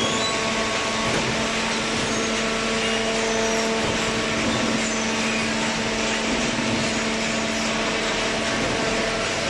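Horizontal hydraulic cardboard baler running: a steady mechanical drone with a constant hum.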